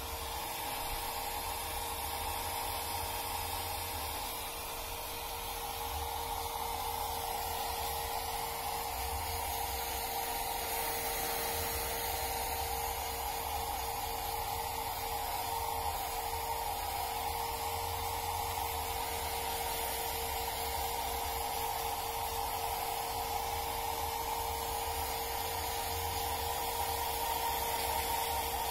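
Handheld electric hair dryer running steadily: an even rush of blown air with a steady hum running through it.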